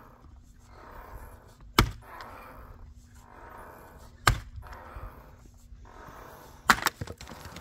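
Fiskars splitting axe striking a willow round three times, about two and a half seconds apart, splitting firewood; the last strike gives a quick double crack.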